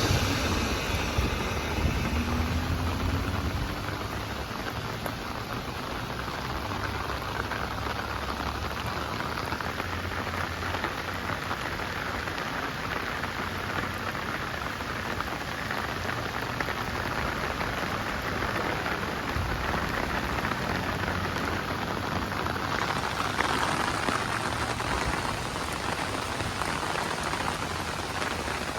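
Heavy rain falling in a steady hiss, with a low rumble in the first few seconds.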